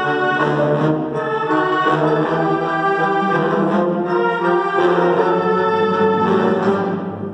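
Live wind orchestra playing, woodwinds and brass together in full sustained chords that change about once a second, easing off just before the end.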